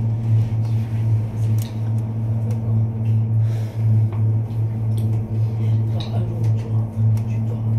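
Steady low hum inside a moving Téléo cable car cabin, pulsing slightly in level, with a few faint clicks.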